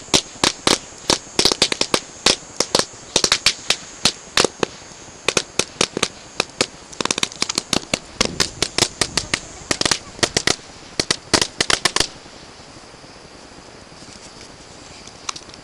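Firecrackers going off in a long, irregular run of sharp bangs, several a second, that stops abruptly about twelve seconds in.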